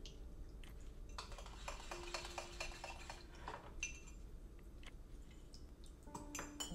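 Small wire whisk beating a mixture in a glass mug: a quick run of light clinks against the glass for a couple of seconds, then a few scattered taps.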